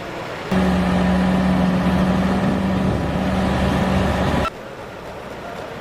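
A heavy vehicle's engine running loudly with a steady low hum. It starts abruptly about half a second in and cuts off abruptly about four seconds later.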